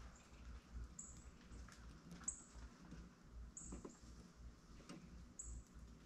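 Faint, very high, thin bird calls, one every second or two, with scattered light clicks and taps from small birds at a tube seed feeder.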